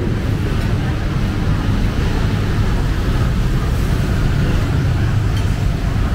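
Steady, loud low rumbling noise with a faint hum, unchanging throughout.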